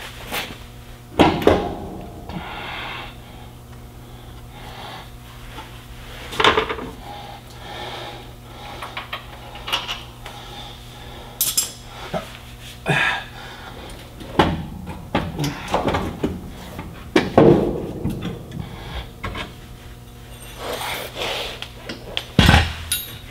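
Scattered metallic clanks and knocks as a heavy-truck starter motor is worked loose by hand from a Caterpillar 3406B diesel, over a steady low hum.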